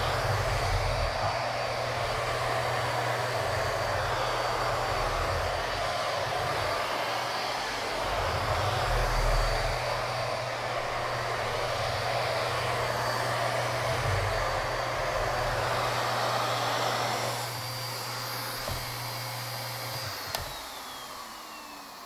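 2004 Miele Art S930 upright vacuum cleaner with a suction-only nozzle, running steadily with a high motor whine and a low hum as it is pushed over a bare wood floor. About twenty seconds in it is switched off with a click, and the motor whine falls in pitch as it spins down.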